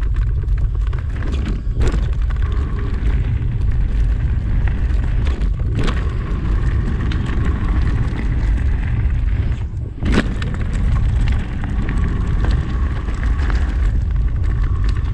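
Wind buffeting a moving camera's microphone as a steady low rumble, with sharp knocks about two, six and ten seconds in and a faint thin whine that comes and goes.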